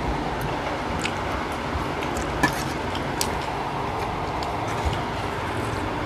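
Eating by hand from steel plates: a few scattered small clicks and smacks from fingers on the plates and chewing, the sharpest about two and a half seconds in, over a steady background hiss.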